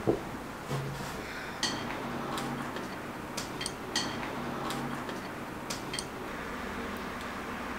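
Spoon clinking and tapping against a bowl now and then, about eight light, separate clicks spaced irregularly over a faint steady hum.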